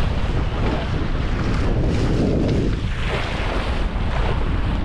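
Strong wind buffeting a GoPro's microphone, with waves washing past the hull of a sailboat under way. There is a surge of rushing water about two seconds in.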